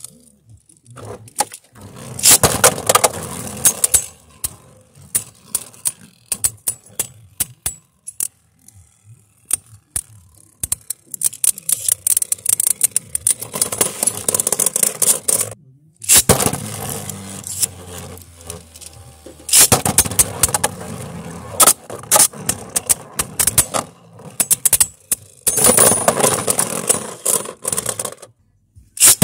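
Plastic Beyblade Burst spinning tops whirring and scraping across a plastic stadium floor, clashing with sharp clicks and clacks as they hit each other and the walls. The sound comes in several bouts of a few seconds each, with short quiet gaps between them.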